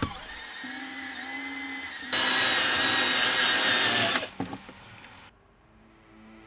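Power drill running with a steady whine, driving a screw: softer for the first two seconds, then at full speed for about two seconds before it stops abruptly, followed by a few short clicks.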